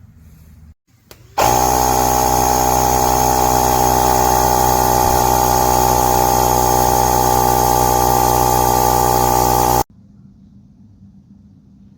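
A portable jump starter's built-in air compressor starts with a click and a quick rising spin-up about a second and a half in. It runs at a loud, steady pitch for about eight seconds, then cuts off suddenly.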